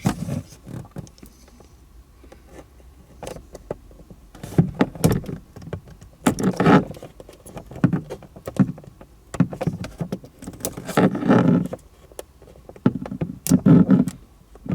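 Hand-handling noises while fitting a small gauge-type unit with double-sided tape: irregular clicks, rustles and soft knocks of plastic and tape backing, with louder bouts of fumbling a few times.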